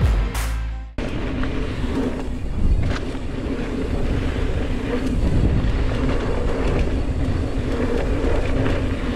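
Intro music cuts off about a second in, followed by a steady rush of wind on an action camera's microphone and the rumble of mountain bike tyres rolling fast down a dirt trail.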